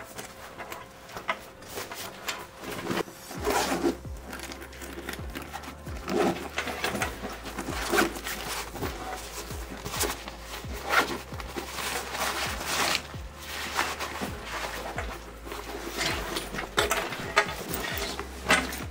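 A fabric camera backpack being handled: irregular rustling of the nylon shell, zipper pulls and small clicks of buckles and hardware as its compartment is opened, its lid flap closed and the pack turned over.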